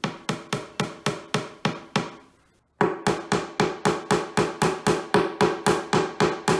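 Claw hammer lightly tapping wooden dowels through a flat-pack shelf panel: rapid even knocks about four a second. The knocks stop briefly about two seconds in, then a second, longer run of knocks follows.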